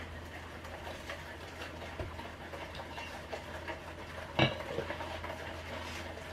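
A utensil stirring batter in a stainless steel mixing bowl, clinking and scraping against the metal as the flour and milk batter is worked smooth of lumps. One louder knock about four and a half seconds in.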